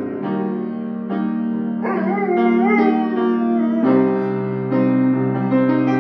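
Instrumental music with piano and guitar. From about two seconds in, a Portuguese water dog howls along for nearly two seconds in a long wavering note that slides in pitch.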